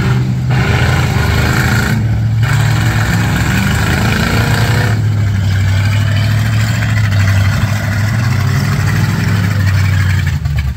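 Gutted demolition-derby cars' V8 engines running loudly and revving, the engine note shifting up and down in pitch as the cars move around the arena.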